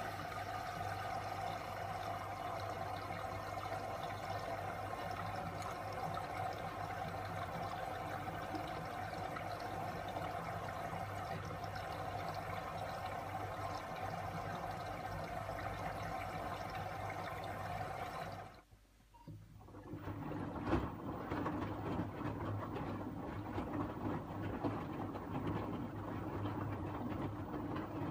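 LG TurboWash front-loading washing machine taking in water for the final rinse: a steady rush of water with a hum, cutting off about 18 seconds in. About a second later the drum motor starts tumbling the wet load, with a single knock soon after.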